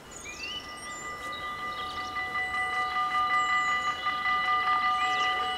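Dutch level-crossing warning bells ringing with a rapid, continuous electric clatter, starting just after the beginning and growing louder over the first few seconds: the crossing has been triggered by an approaching train. Birds chirp in the background.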